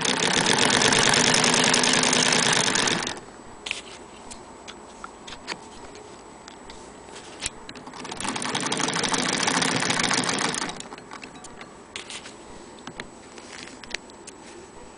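Antique Frister & Rossmann sewing machine stitching through denim in two fast runs, the first about three seconds long and the second, beginning about eight seconds in, a little shorter, each a rapid even clatter of the needle mechanism. Light clicks of handling come between and after the runs.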